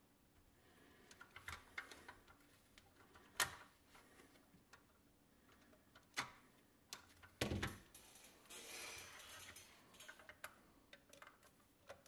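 Small clicks and taps of a metal toy cement mixer's parts being worked with needle-nose pliers and handled, with a sharp knock about three and a half seconds in, a heavier thud about seven and a half seconds in and a short scraping rustle just after.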